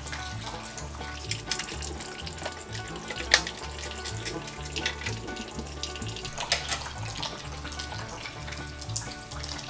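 Old fluids draining from a 1967 Ford F100 and splashing steadily into catch containers, with a sharp clink about a third of the way in. Background music with a steady bass pulse plays over it.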